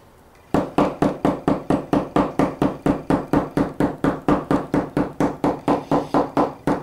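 Hammer tapping a yucca leaf on a wooden board in quick, even blows, about five a second, starting about half a second in. The pounding loosens the leaf's flesh from its fibres.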